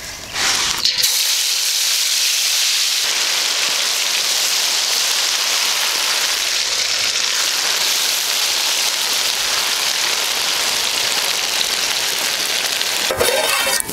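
Marinated chicken 65 pieces deep-frying in a wok of hot oil: a loud, steady sizzle that sets in about a second in.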